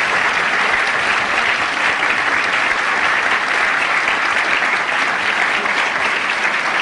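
Luncheon audience applauding steadily: dense, even hand-clapping from a room full of seated guests after a speech.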